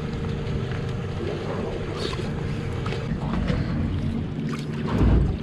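Boat motor running steadily at low speed in gear, a constant hum, with a low thump near the end.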